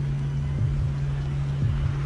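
Tense film soundtrack: a steady low drone with a pair of short low thumps about once a second.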